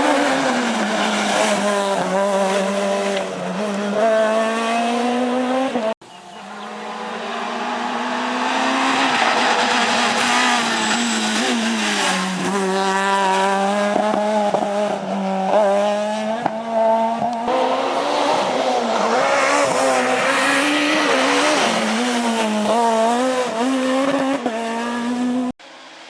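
Renault Clio S1600 rally car's engine at high revs, its pitch rising and dropping back again and again through quick gear changes. The sound breaks off abruptly about six seconds in and again near the end, where one clip is cut to the next.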